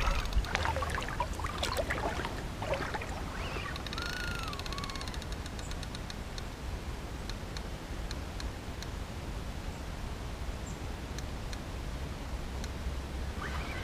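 Spinning reel being cranked by hand: clicks and handling knocks in the first few seconds and a short burst of rapid ticking about four seconds in, over a steady low background rumble.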